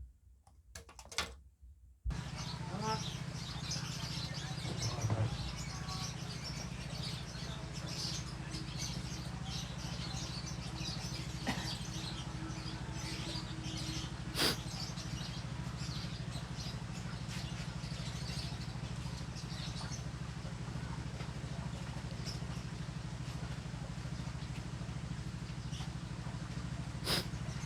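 Lovebirds chirping over a steady low hum that sets in about two seconds in, with a couple of sharp clicks.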